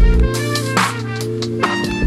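Electronic background music with a drum beat and deep bass hits under sustained synth tones.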